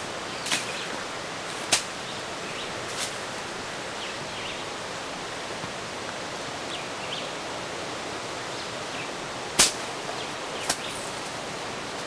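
Steady outdoor hiss in dense vegetation, broken by a handful of sharp snaps or clicks, the loudest about nine and a half seconds in, with a few faint short chirps.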